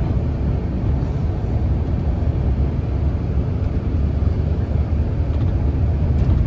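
Steady low rumble of a car's road and engine noise, heard from inside the moving car.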